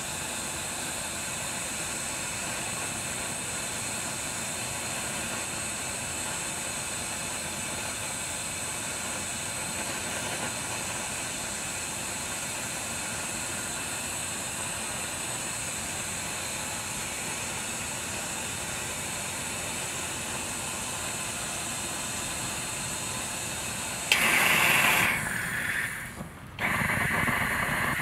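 Takei 501A kerosene pressure burner hissing steadily as it burns. About 24 seconds in the sound suddenly gets much louder, with two brief drops, as the burner changes from a blue flame to a bright full burn.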